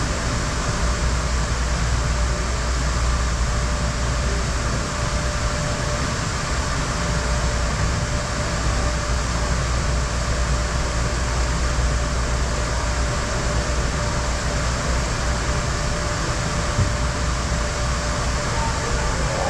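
Steady rumbling noise with an even hiss and a faint steady hum, unchanging throughout.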